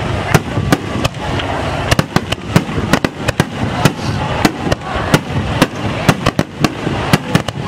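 A starmine fireworks barrage: shells bursting in quick, irregular succession, about three sharp bangs a second, over a steady rushing noise.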